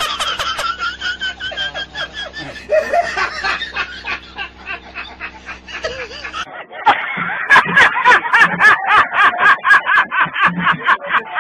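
A high-pitched, cartoonish voice laughing and snickering. About six and a half seconds in it changes abruptly to a faster, choppier run of short laughs.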